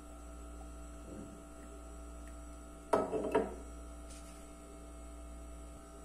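Steady electrical mains hum made of several constant tones, with a short vocal sound about three seconds in.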